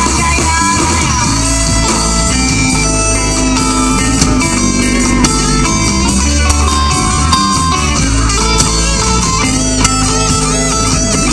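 Rock band playing an instrumental passage with no singing: electric guitar lines with bent notes over bass guitar and drums.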